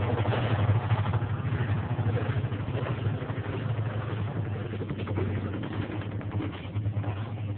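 Electrolux 6 kg washing machine running: a steady low motor hum with a rough, slightly fluctuating noise over it.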